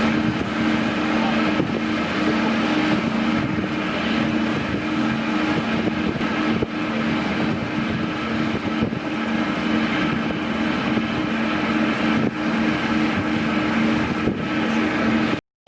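A cruise ship under way, its engines running steadily: a low hum beneath a constant rushing noise.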